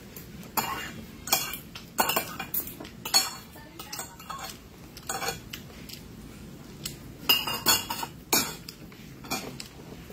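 Metal spoon clinking and scraping against a plate during a meal: about a dozen sharp, irregular clinks, the loudest near the middle and again about three quarters of the way through.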